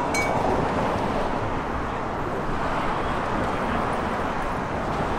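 Steady outdoor background noise, an even rushing hiss over a low rumble, with a brief click at the very start.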